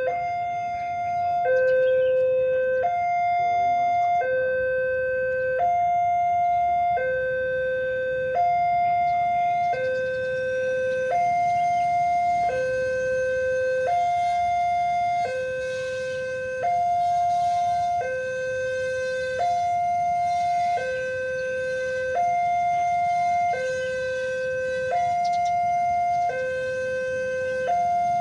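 Electronic two-tone level-crossing warning alarm, switching back and forth between a higher and a lower tone, each held about a second and a half, over a low steady rumble.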